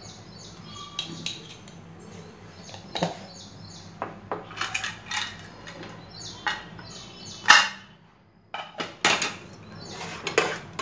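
Metal spoon scraping and knocking against the side of a pressure cooker pot while a thin curry is stirred, in a series of irregular clinks, the loudest about two thirds of the way through. Birds chirp faintly in the background.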